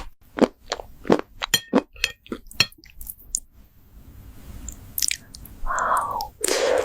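Close-miked crunchy eating sounds: a quick run of crackling bites and chews, then a pause and two louder, longer wet crunches near the end.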